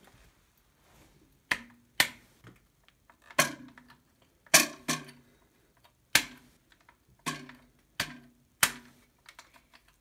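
Hand-held paper crimper worked again and again on a CD: about nine sharp plastic clacks at irregular intervals, some ringing briefly.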